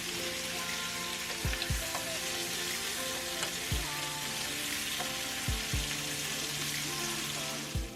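Ribs sizzling as they sear in a hot pan, with music with a beat playing over the sizzle.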